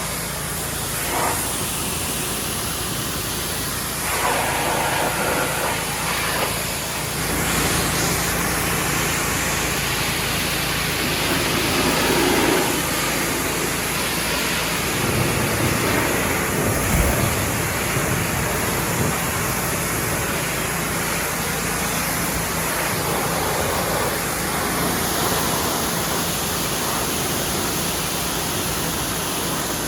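Ryobi 2900 PSI gas pressure washer running, its engine humming steadily under the hiss of the high-pressure water spray, which swells and eases as the spray moves over the tractor.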